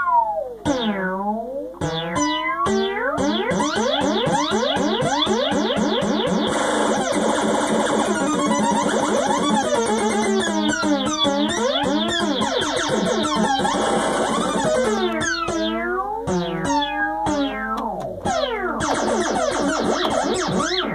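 Moog Sonic 6 analog synthesizer playing a continuous stream of swooping pitch glides and fast warbling tones as its waveform-generator and modulator knobs are turned.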